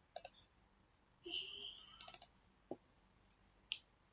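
Faint computer mouse button clicks as a file is chosen: a click near the start, a quick double click about two seconds in, and single clicks later. A short faint sound comes just over a second in.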